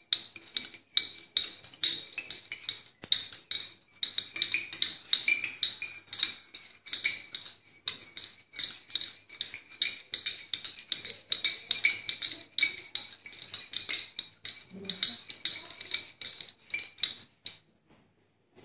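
Glass stirring rod clinking rapidly against the inside of a glass conical flask while stirring a liquid, several ringing taps a second. The clinking stops about a second before the end.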